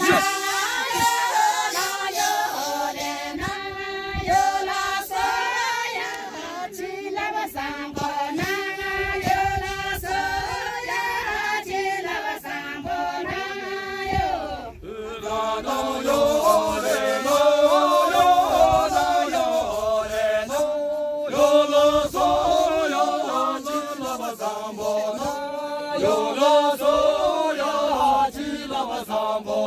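A group of men and women singing a traditional line-dance song together, unaccompanied and chant-like. The song breaks briefly about fifteen seconds in, then a new phrase begins.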